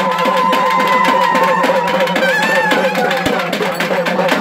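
Temple festival band: nadaswaram-type double-reed pipes hold a long, slightly wavering high melody over fast, steady drumming at about five or six strokes a second.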